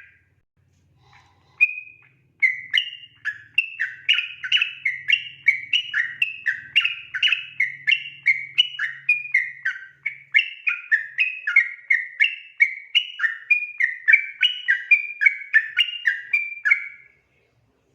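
Sooty-headed bulbul (trucukan) singing a long 'ropel' song: after a couple of short opening notes, a fast unbroken run of clear whistled notes jumping up and down, about three a second, that stops near the end.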